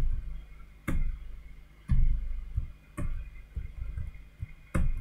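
Computer keyboard keystrokes, single separate taps about once a second, as a password is typed.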